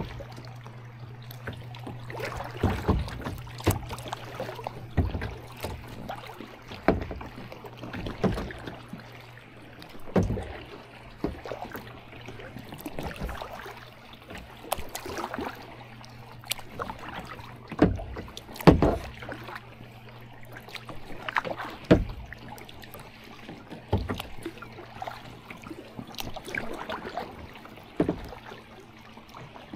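Kayak paddle strokes on a river: the blades dip and splash about every one to two seconds, with a few sharper knocks, over a steady low hum.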